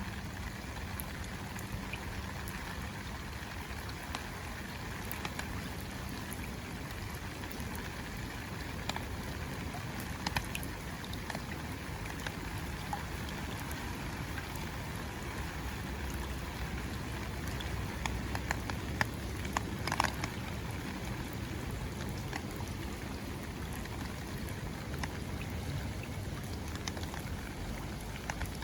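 Rain falling steadily, with individual drops ticking on an umbrella overhead; a few louder drops strike about two-thirds of the way through.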